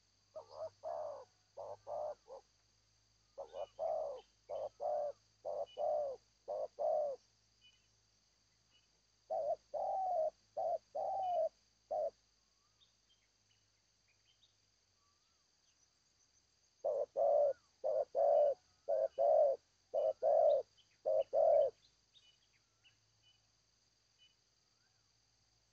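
Spotted dove cooing its song in four phrases, each a run of about five to nine short, low, rhythmic coos, with pauses of a few seconds between phrases.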